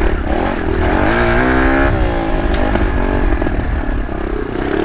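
Kawasaki KLX110 pit bike's small single-cylinder four-stroke engine under way over rough dirt and rocks. It revs up about a second in, eases off near two seconds, then runs on steadily.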